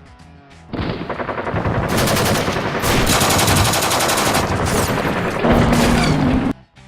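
Machine-gun fire sound effect from the custom sound pack of a Heng Long 1/16 Jagdpanther RC tank: a long rapid burst starting about a second in that cuts off suddenly near the end.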